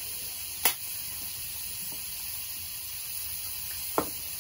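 Steady high hiss of food sizzling on a teppan griddle, with a short knock about a second in and another near the end as a drinking glass is set down on the counter.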